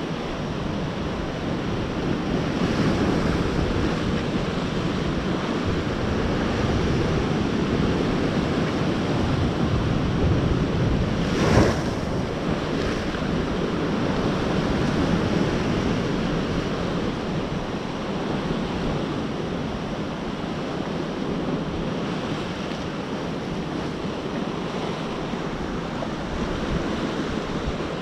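Sea surf breaking and washing over rocks, a steady rush of waves with wind buffeting the microphone. A single sharp knock about halfway through.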